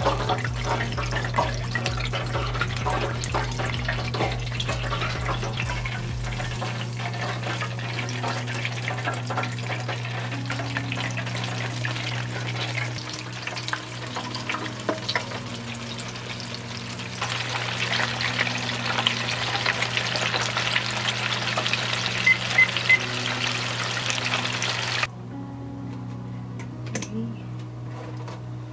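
Battered chicken wings deep-frying in an electric deep fryer, the oil at about 361°F crackling and sizzling steadily. It grows louder partway through and cuts off suddenly near the end.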